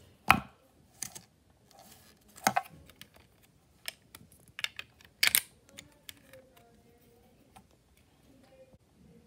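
LEGO-brick M1 Garand toy rifle being reloaded by hand: a run of sharp plastic clicks and clacks as the parts are worked, the loudest just after the start and about five seconds in.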